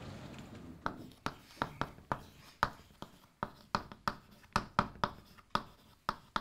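Chalk writing on a chalkboard: a run of sharp taps and short scratches, about two or three a second, as the chalk strikes the board with each letter.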